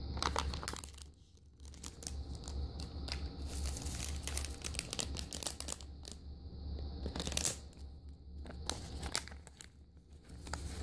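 A shiny blind-bag packet being crinkled and torn open by hand, in repeated clusters of crackling with short pauses between them.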